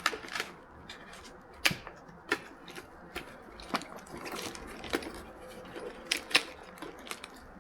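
A folded paper or cardboard box being handled: scattered sharp clicks and taps over a faint rustle as the flaps are creased and pressed into place.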